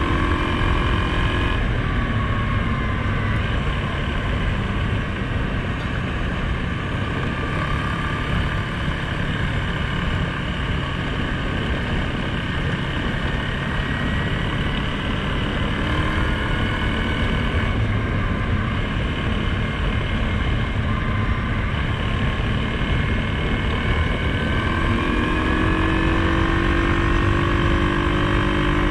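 Suzuki KingQuad 750 ATV's single-cylinder engine running under way on a gravel trail, over a steady rumble of wind and tyre noise. The engine note rises and falls with the throttle and climbs again near the end.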